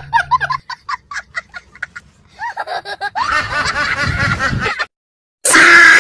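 Rapid snickering laughter in short bursts, then a white domestic duck quacking in a busy, overlapping run; the sound cuts out briefly near the end and a loud new sound begins.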